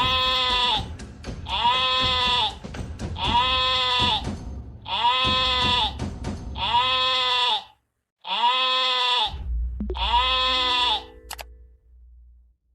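A sheep or goat bleating about seven times in a row, each call under a second long with an arched, rising-then-falling pitch. The calls stop shortly before the end, leaving a low rumble.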